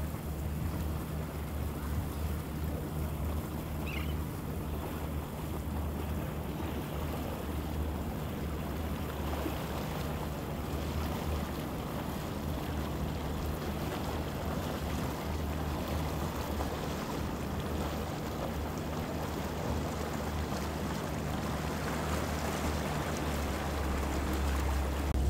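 Boat engines running with a steady low hum, with water churning around the hulls.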